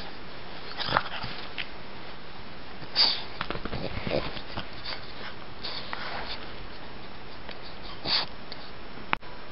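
Pug sniffing at close range with its nose in the blanket: about five short, breathy sniffs over a steady hiss.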